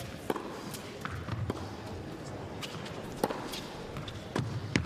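Tennis rally: sharp pops of the ball struck by rackets and bouncing on the court, coming about a second apart.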